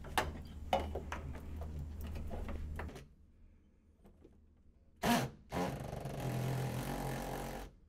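Light metal clicks and rattles as a sheet-metal bracket is handled. About five seconds in, a cordless drill with a hex driver bit spins briefly, then runs steadily for about two seconds, driving a screw into the bracket, and stops.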